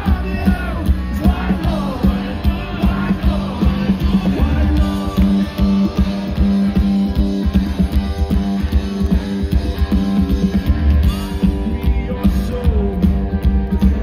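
A live rock trio playing loudly through a festival PA: electric guitar, upright bass and drums keeping a steady beat. The singer's vocal is mostly in the first few seconds.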